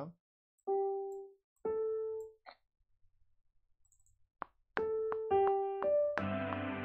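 Software piano notes played back: two single notes, a pause, then a quicker line of four notes, with fuller chords and low bass notes joining about six seconds in.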